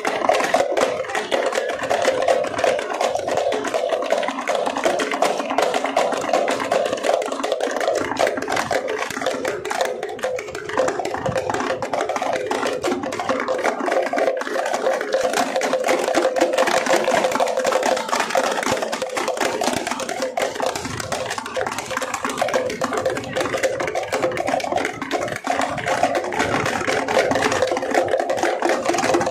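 Several parai (thappu) frame drums beaten together with sticks in a fast, unbroken rhythm of dense, sharp strokes.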